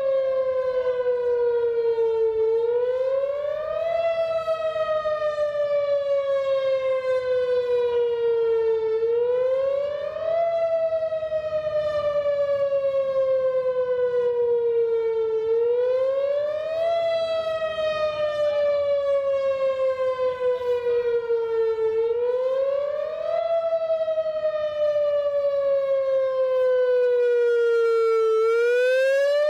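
Outdoor civil-defense warning siren sounding its test signal. Its wail rises quickly in pitch, then falls slowly, repeating about every six and a half seconds.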